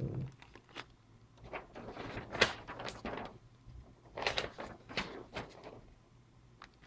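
Packaging being handled, rustling and sliding in several short passes, with one sharp click about two and a half seconds in.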